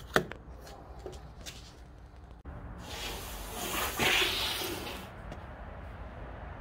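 A sharp click, then carburetor cleaner sprayed from an aerosol can in one hissing burst about two and a half seconds long, cleaning out a dirty, gummed-up carburetor.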